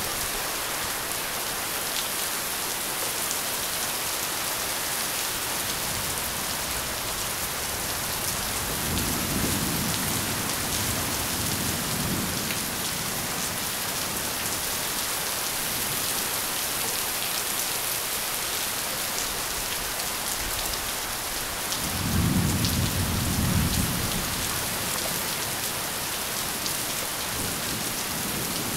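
Heavy rain falling steadily, with two low rolls of thunder: one about a third of the way in, and a louder one about three quarters of the way through.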